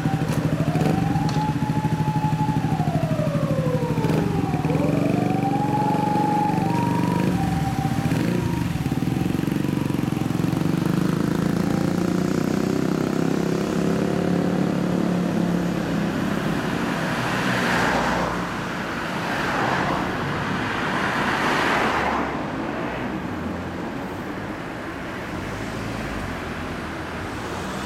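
Motorcycle engines running as the bikes pull away, the revs rising, holding and falling twice in the first several seconds. Then steady street traffic with passing vehicles that surges twice before easing off.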